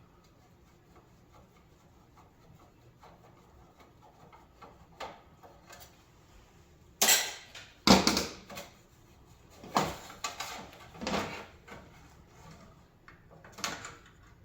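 Metal parts of a coffee warmer clanking and clattering as it is taken apart by hand: faint small taps for the first half, then several sharp, loud clanks.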